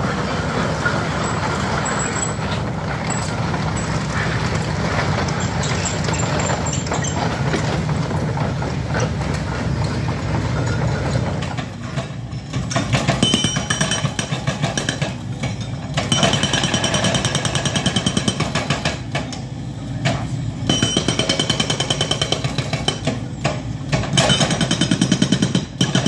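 Excavator-mounted hydraulic breaker working on a concrete slab. The machinery first runs steadily, then from about twelve seconds in comes the breaker's rapid hammering, in several bursts with short pauses between them.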